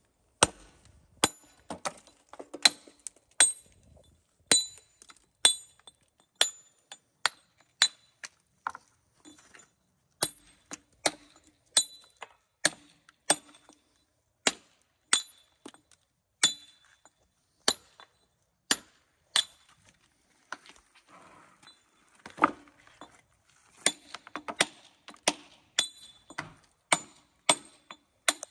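Hammer striking a broad steel stone chisel to dress the edge of a coping stone: a steady series of sharp, ringing metallic clinks, about one to two blows a second. The blows pause briefly about two-thirds through, then come faster near the end.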